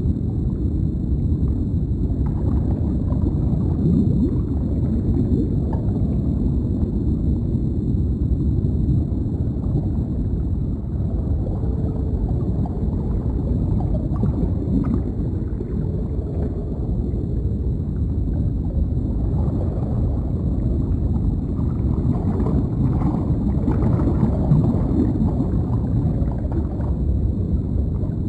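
Deep underwater ambience: a steady, muffled low rumble of water, with faint gurgling bubbles now and then.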